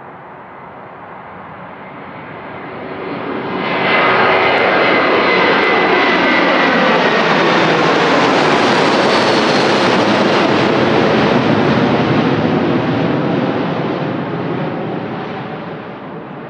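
Boeing 757-200's two Rolls-Royce RB211 turbofans at takeoff thrust as the jet climbs out overhead. The noise swells, stays loud for about eight seconds with a whine that slides down in pitch as the plane passes, then fades away.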